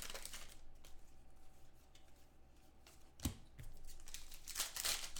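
Faint rustling and handling of trading cards and a foil pack wrapper, with one sharp click a little over three seconds in.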